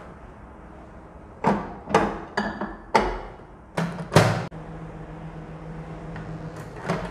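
Countertop microwave oven being shut and set: a run of sharp knocks and clicks from the door and the dial knobs, then the oven starts with a steady hum about four seconds in, melting a bowl of chocolate; another click near the end.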